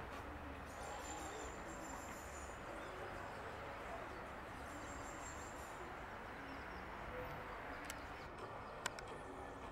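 Steady outdoor background noise with two stretches of faint high-pitched chirping, and one sharp click near the end.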